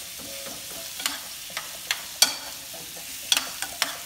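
Diced peppers and fruit sizzling in a frying pan as they are stirred, with a steady hiss and a utensil clinking sharply against the pan about seven times.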